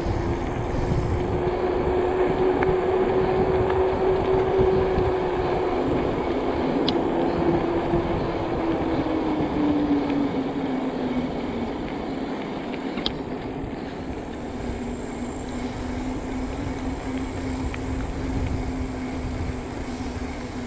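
Electric bike motor whining steadily while riding, its pitch dropping lower about halfway through as the bike slows, over a low rumble of wind and tyres on pavement.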